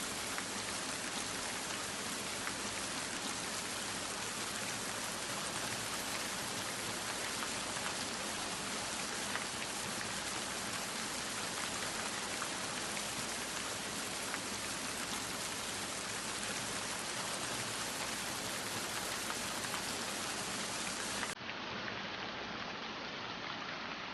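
Steady rain falling, an even hiss of countless drops. A little before the end the sound turns abruptly duller but carries on.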